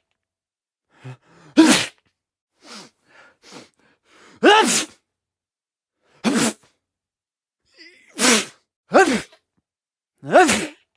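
A string of separate human sneezes: about six loud ones, each a short voiced burst falling in pitch, some with a quick intake of breath just before, and a few softer bursts between them.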